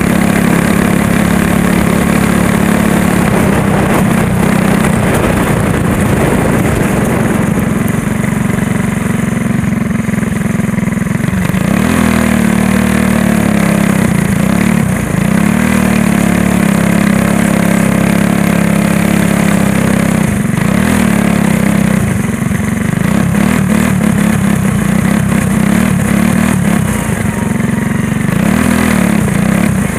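Go-kart's small engine heard close up from a camera mounted on the kart. It runs steadily at first, then rises and falls in pitch several times as the kart slows off the track.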